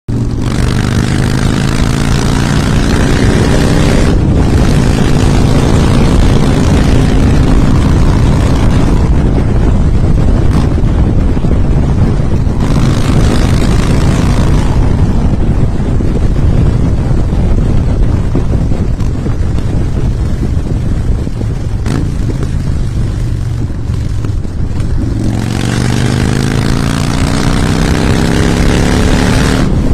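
Harley-Davidson V-twin motorcycle engine running loud, its pitch climbing as it accelerates in the first few seconds and again near the end, each climb breaking off suddenly.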